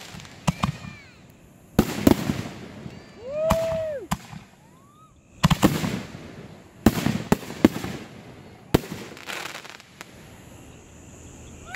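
Aerial fireworks bursting overhead: about a dozen sharp bangs, coming irregularly and often in quick pairs.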